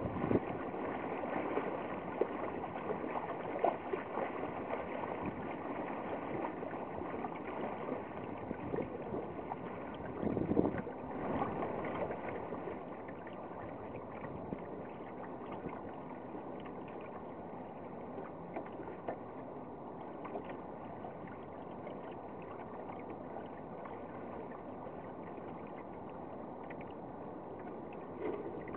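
Water rushing and splashing along the hull of a small sailboat under way, with a louder surge of splashing about ten seconds in, after which it goes on a little quieter.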